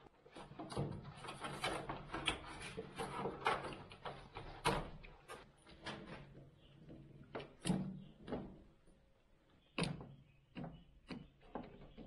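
Plastic clicks, knocks and rattles from a top-loading washing machine's control panel being opened and its control board handled and unscrewed. The knocks come thick and fast for the first few seconds, then as scattered single clicks.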